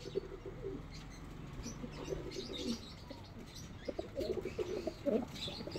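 A flock of domestic pigeons cooing softly on and off, the low warbling calls busiest in the second half.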